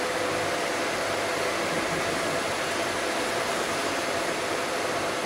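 Steady whooshing hum of running workshop machinery, with a couple of constant humming tones beneath it.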